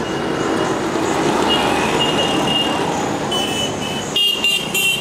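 City street traffic with a steady rumble. In the second half, short high-pitched vehicle horn toots come in, the loudest two close together about four seconds in.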